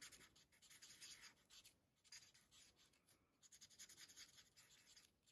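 Faint scratching of an alcohol marker's tip stroked over vellum in short, irregular strokes, while a flower is coloured in with Stampin' Blends.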